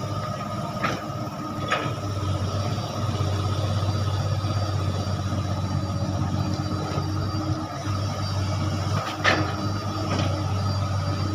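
Komatsu long-reach excavator running steadily while it works its boom and bucket in mud, with a steady higher tone over the engine hum. A few sharp knocks come through, two near the start and two near the end.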